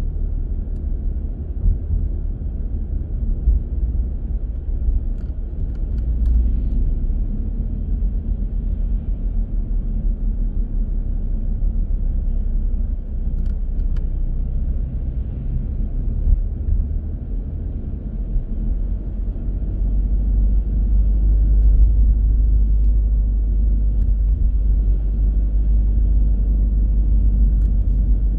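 Car driving along a road: a steady low rumble of engine and tyre noise, growing somewhat louder in the last third.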